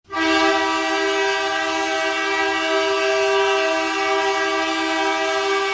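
Hockey goal horn sounding one long, steady blast, a chord of two close low tones with a bright, brassy edge, starting abruptly.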